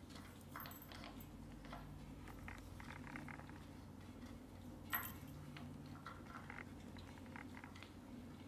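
Faint taps and clicks of kittens at play: paws patting a wooden floor and wooden balls knocking in a ball-track tower toy, with one sharper click about five seconds in, over a low steady hum.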